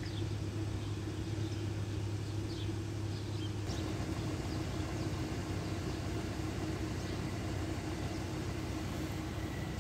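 Steady outdoor traffic noise with a low hum, broken by a few short bird chirps. About four seconds in the hum drops away and a wider rushing noise comes in.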